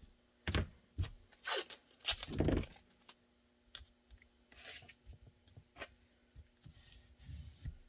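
Blue painter's tape pulled off the roll in a few short rips, with crinkling and light knocks as it is pressed down by hand.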